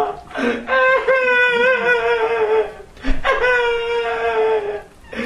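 A high-pitched performer's voice crying and wailing in pain for a puppet character, in two long drawn-out wails that sag in pitch at the end.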